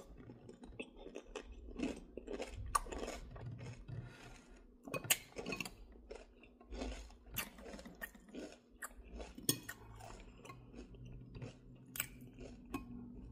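A person eating soup: soft, irregular chewing and mouth noises, with a metal spoon clicking now and then against a glass bowl.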